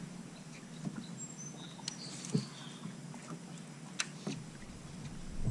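Quiet lakeside ambience: a few faint, short high bird chirps over a low steady hum, with several light clicks and taps, the sharpest about two and a half seconds and four seconds in.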